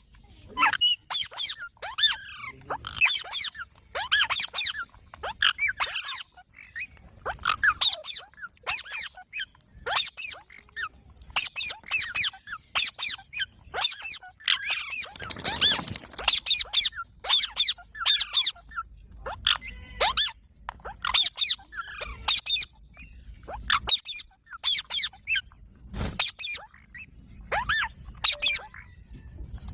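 Baby parrots calling in quick runs of short, high-pitched squeaky calls, over and over.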